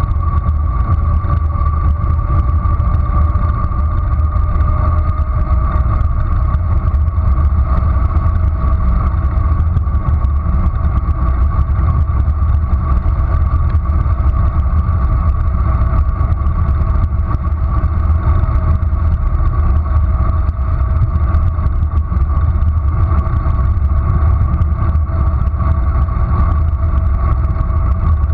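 Wind rushing over a bicycle-mounted camera's microphone on a fast downhill ride, a steady heavy rumble with road noise underneath and a thin steady whistle on top.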